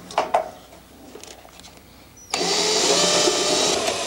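A couple of short knocks, then about two seconds in a cordless drill starts and runs steadily, its pitch rising a little, driving a washer-head screw into the dumbwaiter's metal guide-rail bracket at the floor.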